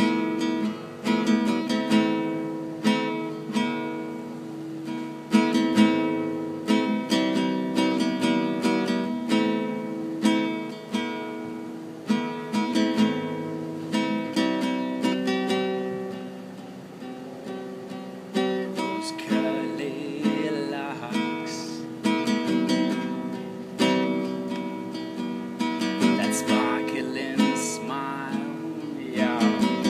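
Classical nylon-string guitar strummed in a steady rhythm, chords ringing between strokes. A singing voice wavers in briefly past the middle and again near the end.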